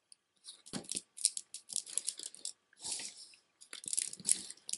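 Large round beads of a heavy beaded rosary necklace clicking against each other as it is picked up and laid out, in irregular clusters of small sharp clicks.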